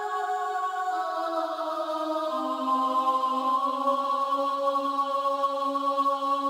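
Slow background music of sustained, held notes whose chord steps down in pitch about one and two seconds in.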